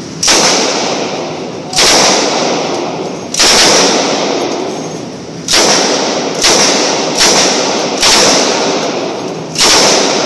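About eight gunshots from a shoulder-fired gun, spaced a second or so apart. Each shot is followed by a long echo off the walls of an indoor range.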